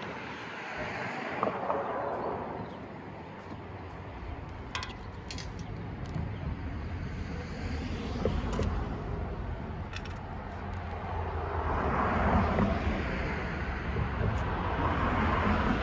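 Steady outdoor background noise with wind on the microphone. In the last few seconds a rising rumble grows louder as an electric passenger train approaches along the tracks.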